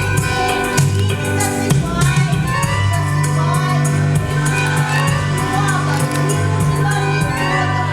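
Upbeat music with a steady bass line and quick, sharp high percussion strokes.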